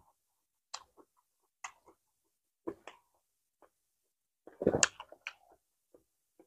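Close-up mouth sounds of someone eating soft steamed rice rolls (bánh cuốn) and fresh greens: scattered wet chewing clicks and smacks. A louder burst of handling noise comes a little under five seconds in.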